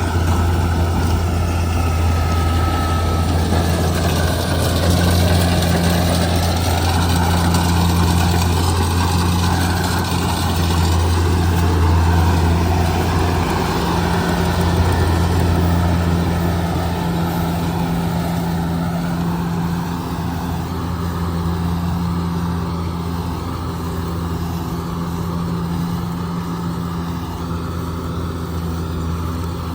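Kubota DC70G Plus combine harvester running, its engine giving a steady low drone that eases off slightly in the second half.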